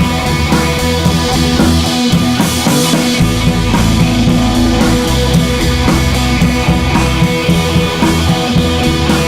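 Background rock music with electric guitar, bass and drum kit at a steady, loud level.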